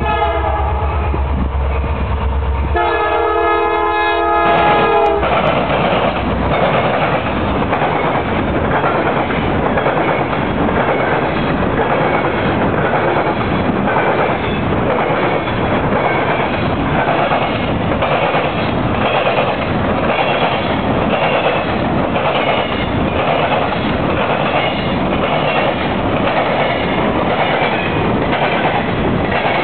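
A Norfolk Southern freight train passing: the locomotive's horn sounds over a low engine rumble, with its loudest blast lasting about two seconds from roughly three seconds in. Loaded grain hopper cars then roll by, their wheels clattering in a steady repeating rhythm over a rail diamond crossing.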